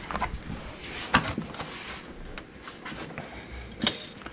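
Scattered light knocks and clicks with some rustling, the loudest about a second in and another near the end: handling noise from a camera moving around a car's engine bay.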